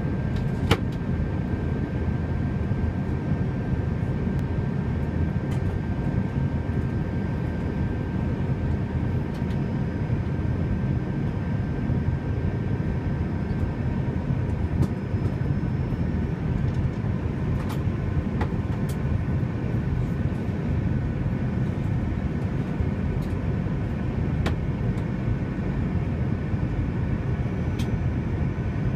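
Airbus A321 cabin noise heard from a window seat by the wing: the steady rumble of the jet engines and airflow, with a few steady high tones over it and occasional faint clicks.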